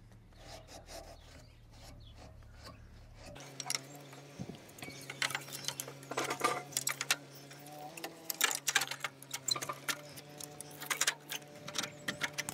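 Hands handling the plastic front panel of a VW T4 van: a scattered run of light clicks and knocks from about four seconds in, over a steady low hum.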